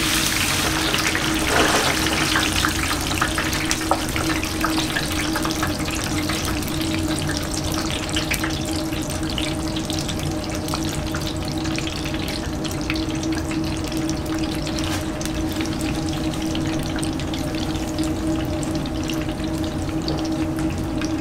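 Potato wedges deep-frying in two wire baskets in a commercial deep fryer: the oil bubbles and crackles steadily, with a surge of sizzling about a second and a half in as the baskets go into the oil. A steady hum runs underneath.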